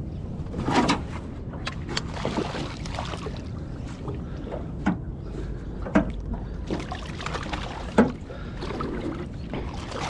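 A hooked flathead splashing at the surface and a landing net sloshing into the water as the fish is netted beside a small aluminium boat. Several sharp splashes and knocks, the loudest about a second in, near six seconds and near eight seconds, over a steady low rumble.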